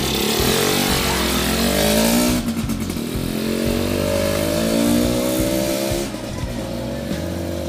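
Freshly overhauled Yamaha RS100 two-stroke single-cylinder engine revving as the motorcycle pulls away. Its pitch climbs, drops sharply about two and a half seconds in, climbs again, and then settles lower and quieter as it moves off.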